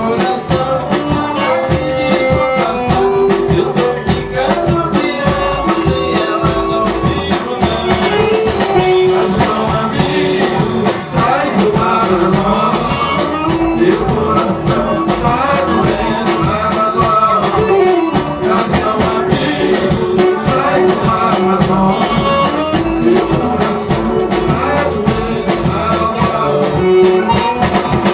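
A live band playing a gaúcho-style vanera dance tune with a steady beat.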